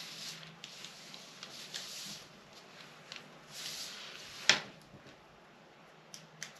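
Paper pattern being measured and marked by hand: short spells of paper rubbing and scratching, with one sharp tap about four and a half seconds in and a couple of faint ticks near the end.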